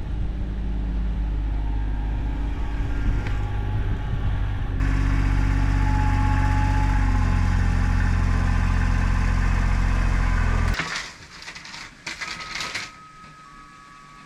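A motor vehicle's engine running with a steady low drone, getting louder about five seconds in and stopping about eleven seconds in. Then dry crackling and snapping, like corn stalks being pushed through.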